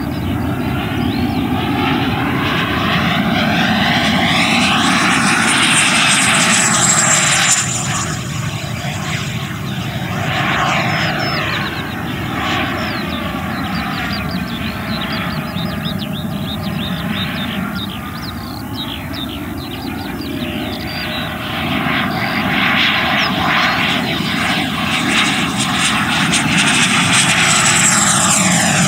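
Black Horse Viper RC jet's 100 mm WeMoTec Midi Evo electric ducted fan at high power in flight: a steady rushing jet-like sound. A high fan whine sweeps down in pitch as the jet passes close, about seven seconds in and again near the end.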